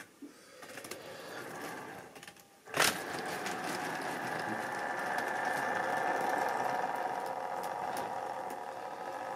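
Model railway train of tank wagons and a diesel locomotive running past close by: a steady electric motor hum with the wheels clicking over rail joints, loudest as the locomotive draws level. A single sharp click about three seconds in.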